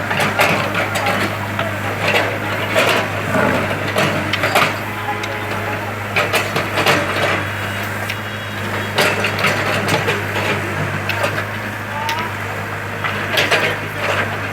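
Bulldozer's diesel engine running steadily at a low, even hum, with frequent irregular clanks and knocks from the machine working.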